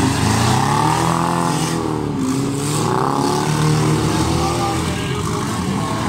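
Engines of old demolition-race cars revving hard, their pitch repeatedly rising and falling as they accelerate and slow on a dirt track.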